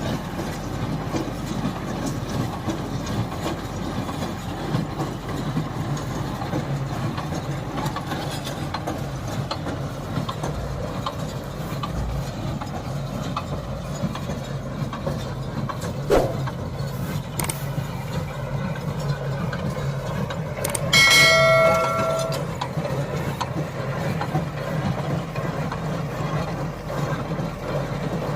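Paddy straw baler running: a steady, low mechanical drone. A single knock comes partway through, and later a brief, loud ringing tone with several overtones.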